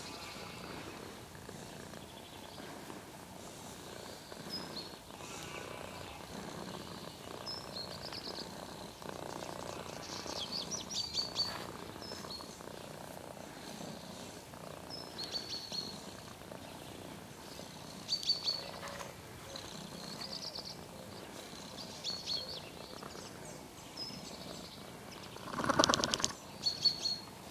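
A calico cat purring steadily while being petted, with short bird chirps about every two seconds. Near the end there is a louder rustle as the cat's fur brushes the microphone.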